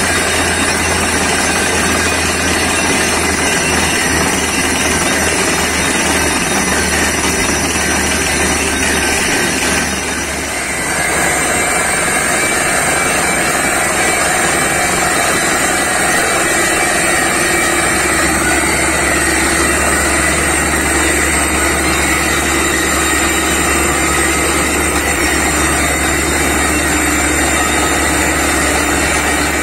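Truck-mounted borewell drilling rig running steadily, its engine and compressed air drilling and blowing rock cuttings and dust out of the borehole. The sound dips briefly about ten seconds in and carries on.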